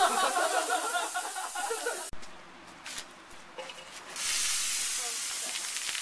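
Mentos-and-cola geyser spraying out of a plastic bottle with a loud hiss, with people's excited voices over it. The hiss cuts off abruptly about two seconds in; after a quieter stretch with a few clicks, the hiss of another geyser starts about four seconds in.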